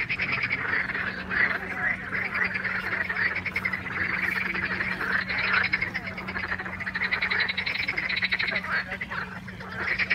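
A chorus of many frogs calling together, overlapping trains of fast rattling croaks that swell and ease without a break.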